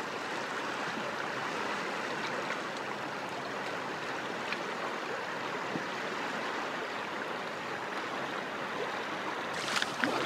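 River current running steadily: an even, unbroken rush of flowing water. Sharp clicks break in near the end.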